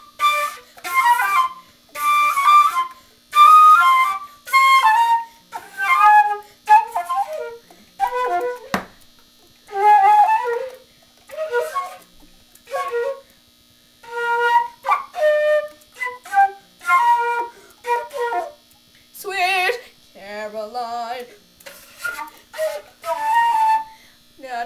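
Concert flute played by a beginner on the first day: short, separate, halting notes with brief pauses between them, the first several with a loud rush of breath noise.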